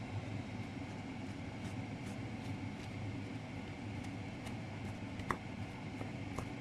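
Wooden spoon stirring grated coconut into sugar syrup in a non-stick pan, giving faint scrapes and one sharper tap about five seconds in, over a steady low hum.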